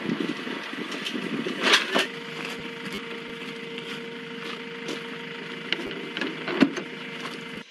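Military ambulance's engine idling with a steady hum and a held tone. A few knocks and clicks sound over it: two about two seconds in, and a sharper click near the end as the rear door handle is worked.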